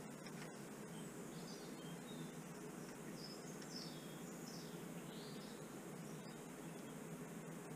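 Quiet workshop background hiss, with a few light clicks of hand work on the drive unit near the start and faint high-pitched chirps through the middle.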